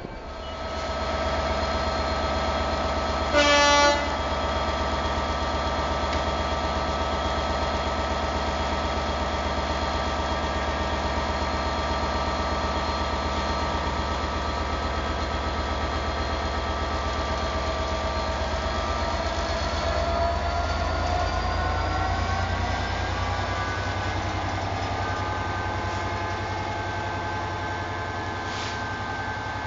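Class 67 diesel locomotive's EMD two-stroke V12 engine running steadily, with a short, loud horn blast about four seconds in. Around twenty seconds in, the engine note rises as it powers up and then holds.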